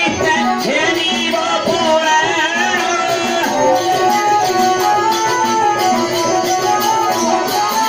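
Live traditional folk music accompanying a dance: a drum keeps a steady beat under a melody of held notes that step up and down.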